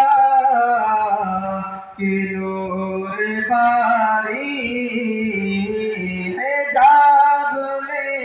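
A man singing a naat unaccompanied through a PA system, drawing out long held notes that slide between pitches, with a short break for breath about two seconds in.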